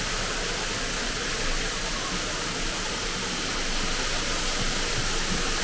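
Steady rushing hiss of falling water from an indoor waterfall, even and unbroken.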